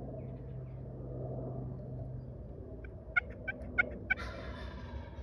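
Wild turkeys calling: about three seconds in, a quick run of five or six short, high calls, then a tom gobbling, a rattling call lasting about a second.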